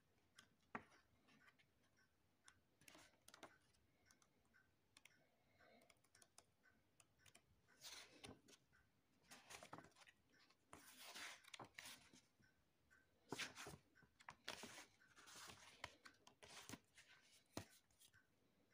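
Faint rustling of paper pages as a thin booklet is handled and leafed through, in short irregular bursts with a few light clicks.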